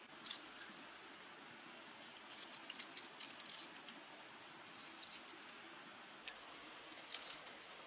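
Soft crisp crackles and rustles in several short clusters as fingers pick roasted black spiders off a leaf in a woven basket.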